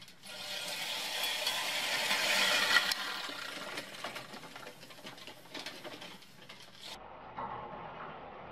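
Fiskars StaySharp Max 18-inch push reel mower rolling across a lawn, its spinning reel blades cutting grass with a fast, steady whirring rattle. It is loudest about two to three seconds in and eases off after.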